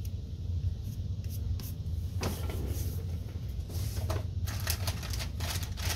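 Hands pressing and handling glued paper card stock on a cutting mat: scattered soft rustles and taps, getting busier near the end, over a low steady hum.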